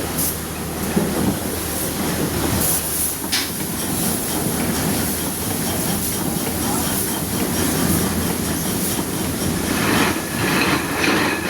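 Steamboat steam engine running steadily.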